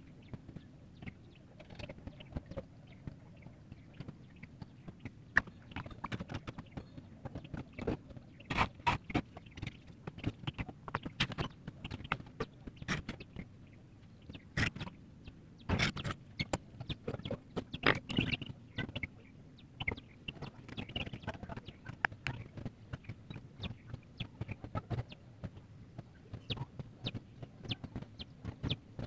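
Scattered small clicks, taps and scrapes from handling a flat paintbrush, a plastic paint palette and a steel ruler on paper.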